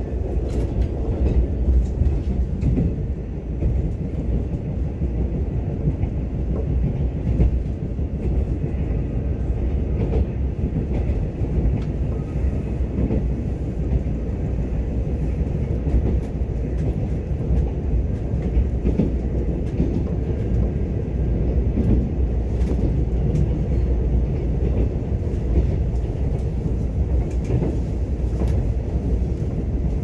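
Mugunghwa-ho passenger train running along the line: a steady, even rumble of wheels on rails, with a few faint clicks now and then.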